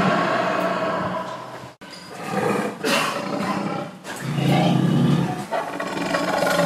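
Low, harsh animal calls from a struggle between cheetahs and the antelope they are pulling down, loudest about four to five seconds in. The sound cuts out abruptly for a moment just under two seconds in, then resumes.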